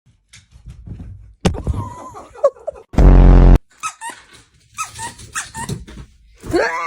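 A dog whining and squeaking in short, high, wavering calls, ending in a longer whine that rises and then holds. About three seconds in, a loud, harsh buzz lasts about half a second.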